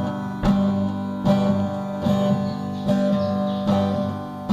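Acoustic guitar strummed in a steady rhythm, a chord struck about every second, between sung lines.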